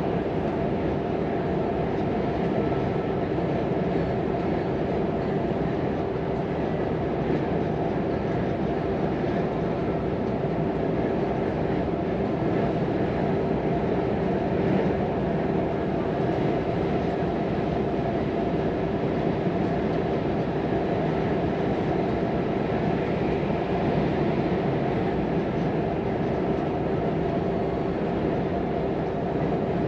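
Volvo FM 420 hp truck running steadily at cruising speed: an even engine drone with a steady hum and tyre and road noise, with no changes in pitch or loudness.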